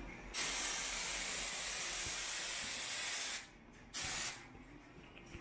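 Aerosol can of insecticide spraying against mosquitoes: one long hissing blast of about three seconds, then a short spurt a second later.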